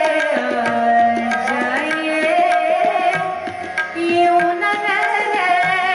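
A woman singing a classical ghazal in the traditional style, holding and gliding between long notes, over steady tabla strokes.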